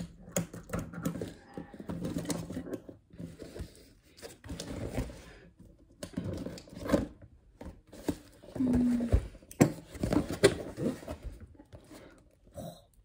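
Scissors snipping and slicing through packing tape on a cardboard box, with tape tearing and cardboard scraping and rustling as the box is cut open. Near the end the cardboard flaps are pulled open.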